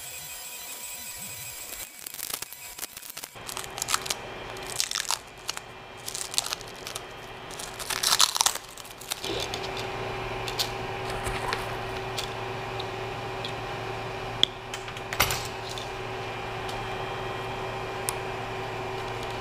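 Irregular crinkling and crunching of plastic being handled, loudest about eight seconds in. Then, from about nine seconds in, a steady hum with a low tone as the Creality CR-20 Pro 3D printer's fans run while it heats up, with a couple of sharp clicks in the middle.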